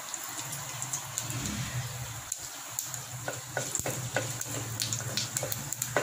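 Fennel seeds, bay leaves and cloves sizzling in hot oil in an aluminium pressure cooker as they are stirred with a wooden spatula. Scattered sharp crackles and pops over a steady sizzle grow more frequent after about two seconds, as the spices splutter in the oil.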